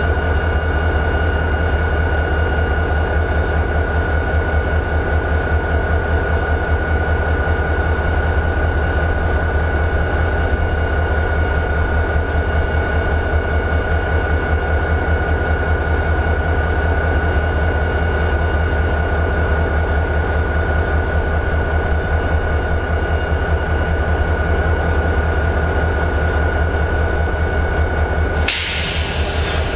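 EMD 645 diesel of a GP40-2 locomotive, a turbocharged 16-cylinder engine, idling with a steady, even-pulsed rumble and a constant high whine. Near the end there is a brief hiss.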